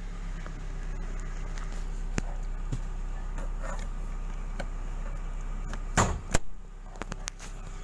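Steady low hum of the car's 2.2-litre four-cylinder idling, heard from inside the cabin, with small clicks of the dashboard trim being handled. About six seconds in come two loud clunks close together from the centre console panel.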